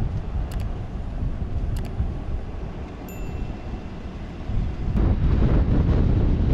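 Wind buffeting the microphone as a low rumble, growing louder about five seconds in. A short bright chime sounds about three seconds in, the sound effect of a subscribe-button graphic.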